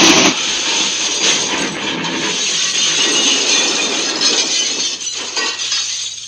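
Crash sound effect: a rough, rattling crunch with clinking glass that goes on for about six seconds and cuts off suddenly at the end.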